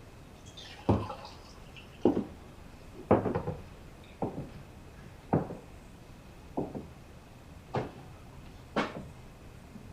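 A series of eight light knocks or taps, roughly one a second, over a faint steady high tone.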